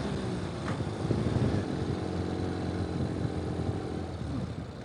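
Ural sidecar motorcycle's flat-twin engine running on the move, with wind rush. The engine note shifts briefly near the end.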